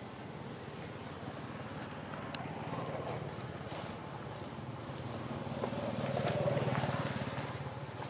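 A motor vehicle's engine humming steadily, growing louder to a peak about six and a half seconds in and easing off near the end.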